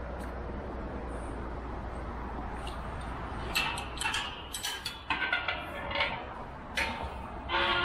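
A steady hum of distant motorway traffic, then a galvanised steel kissing gate being opened and pushed through: the latch clicks and the metal gate clanks and rings in a run of sharp knocks.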